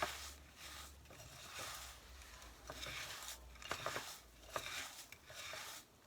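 Crushed coconut biscuit crumbs being mixed with melted butter in a container: faint, uneven scraping and rustling strokes with a few light clicks.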